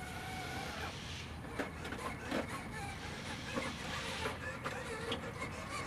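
Radio-controlled scale rock crawler's electric motor and geared drivetrain whining as it crawls over rocks, with a steady whine in the first second, then irregular knocks and scrabbling of the tires and chassis on stone.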